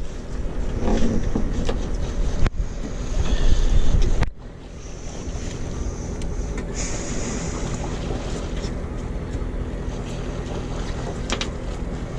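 Wind noise on the microphone over a steady low rumble aboard a small fishing boat at sea, with a few faint knocks. It is louder and gustier for the first four seconds or so, then settles to a steadier, quieter hiss.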